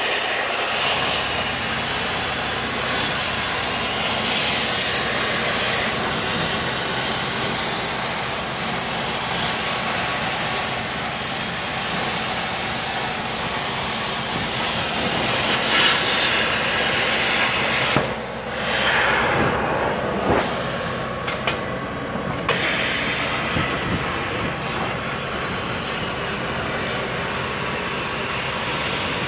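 CNC plasma cutter arc cutting 3 mm aluminium sheet, a loud steady hiss of the arc and cutting air. About two-thirds of the way through the hiss breaks briefly, with a few sharp pops and a short dip.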